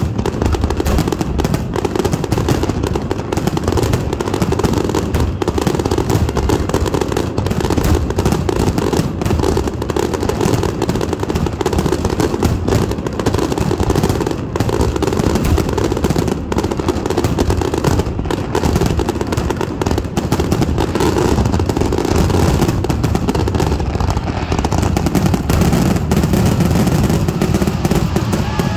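Fireworks finale barrage: aerial shells bursting in rapid, continuous succession, a dense unbroken run of booms with no pause between them.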